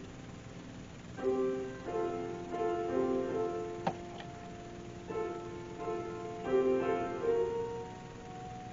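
Piano playing chords and melody in short phrases, with a single sharp click about four seconds in.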